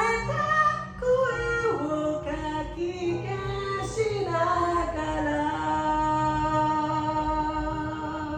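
Karaoke singing: a solo voice over a backing track, singing short moving phrases and then holding one long note from about halfway through.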